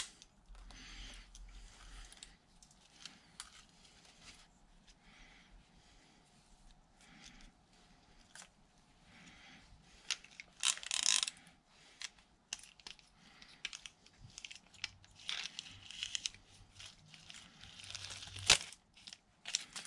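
Faint, intermittent handling noises from an Abu Garcia 6500 C3 baitcasting reel and its parts: small clicks, scrapes and rustles as the reel's handle side is worked on, with a louder rustle about eleven seconds in and a sharp click near the end.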